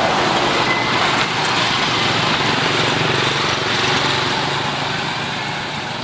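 Road traffic noise: a motor vehicle running close by over a steady rushing sound, easing off near the end.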